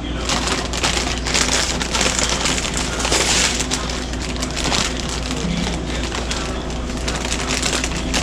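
Close, irregular crunching and crinkling from eating a crusty grinder sandwich in its paper wrapper, over a faint steady hum.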